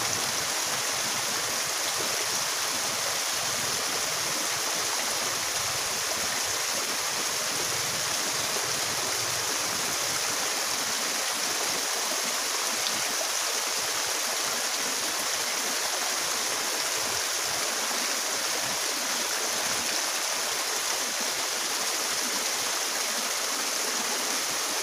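Steady rush of fast-flowing water in a small ditch, spilling over a little drop into a rippling pool.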